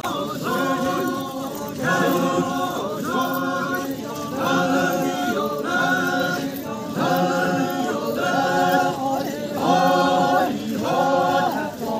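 Men's chorus singing a Chakhesang Naga folk chant in unison without instruments, in short repeated phrases of about a second each.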